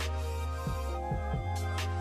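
Background music: a beat with deep bass kicks that slide down in pitch and sharp drum hits.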